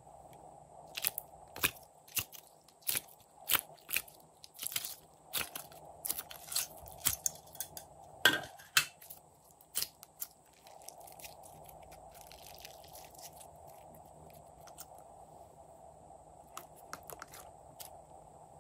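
Glossy slime squeezed and kneaded by hand, giving a run of sharp wet pops and crackles for most of the first ten seconds. After that it is quieter, with a few soft clicks near the end.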